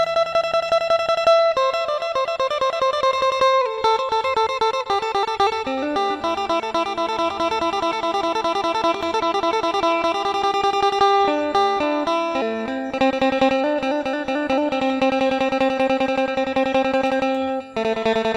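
Phin, the Isan Thai lute, played with fast repeated picking over sustained drone notes, with a brief break near the end.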